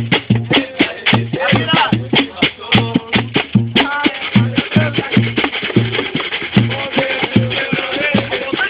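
Samba: a group singing over a steady low drum beat with shakers.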